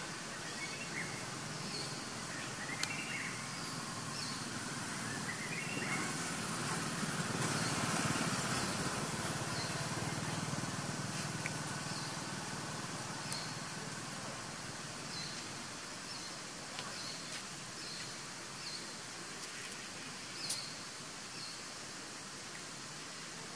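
Outdoor ambience: short high bird chirps repeating throughout over a steady hiss, with a broad rush of noise swelling and fading for several seconds in the middle.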